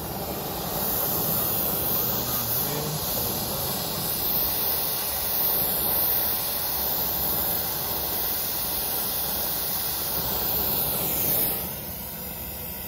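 Oxy-fuel brazing torch flame burning steadily as it heats a copper line's joint into a filter drier for silver brazing. The flame noise drops away about eleven and a half seconds in as the torch is taken off the joint.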